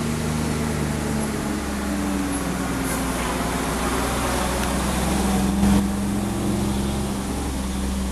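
Kenworth T660 diesel tractor-trailer passing close at a steady pace, its engine a low, even drone under the hiss of tyres on wet pavement. It is loudest a little past halfway, as the rig goes by.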